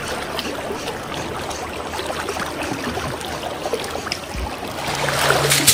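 Shallow creek water rushing steadily over a riffle. About five seconds in it grows louder, and a single sharp noise stands out just before the end.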